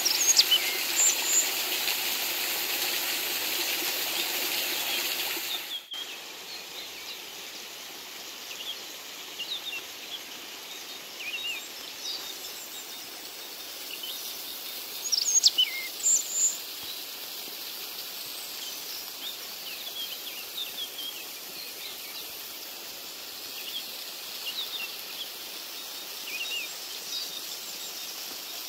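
Water running steadily from a concrete spout as fish are rinsed under it by hand, cutting off abruptly about six seconds in. After that, many short bird chirps over a quieter steady rush of water from a small waterfall.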